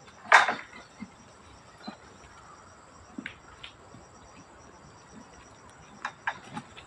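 Steady high-pitched insect chirring, with a loud brief crackling rustle just after the start, two sharp clicks around three seconds in, and a cluster of short knocks near the end.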